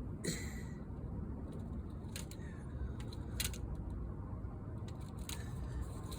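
A few sharp clicks and a brief squeak from hand work on a window screen and its frame, spaced a second or more apart, over a steady low rumble.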